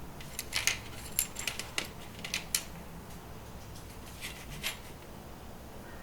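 Light metallic clicks and clinks from the small metal parts of a just-disassembled diecast toy car being handled, a quick scatter of them over the first few seconds and a couple more about four and a half seconds in.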